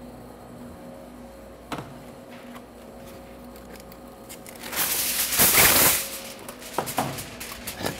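Aluminium foil being handled to cover a baking dish: a loud crinkling rustle a little under five seconds in, then scattered crackles as the sheet is pressed over the dish.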